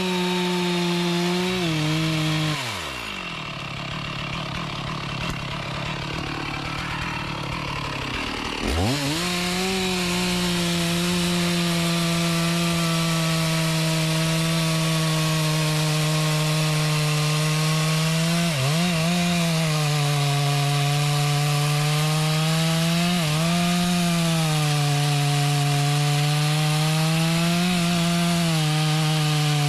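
A chainsaw cutting mahogany wood at high revs. About two and a half seconds in the engine drops back and runs slower and quieter for several seconds, then opens up again and cuts steadily, with brief dips in revs a few times.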